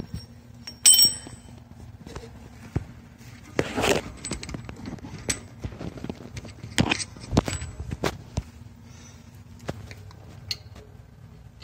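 Scattered knocks, rustles and clicks of metal plumbing fittings and tools being handled, with a bright metallic clink about a second in and louder clattering knocks about four and seven seconds in.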